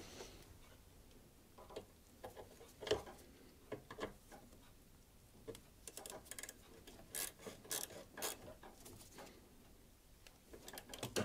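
Irregular light clicks and metallic taps of hand tools as the 10mm fasteners on a freshly fitted ABS pump are done up with a ratchet and socket.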